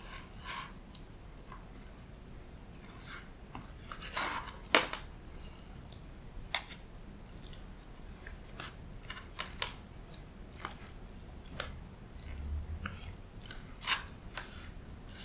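Chopsticks tossing thick udon noodles with egg and dashi soy sauce in a plastic takeout bowl: irregular light clicks and scrapes of the chopsticks against the plastic, with one sharper knock about five seconds in.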